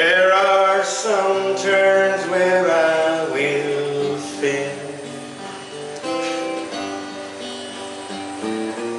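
Acoustic guitar played live with a man singing long, wavering notes over it for the first few seconds, then the guitar carrying on alone.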